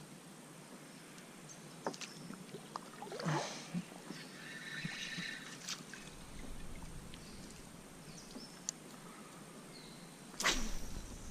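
Small water sounds and knocks from a fishing kayak on the water, with scattered sharp clicks and a brief louder splash-like sweep about three seconds in and again near the end.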